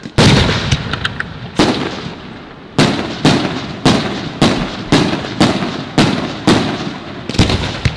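Aerial fireworks shells bursting: a loud bang near the start, another about a second and a half in, then a rapid run of bangs about two a second, each trailing off in echo.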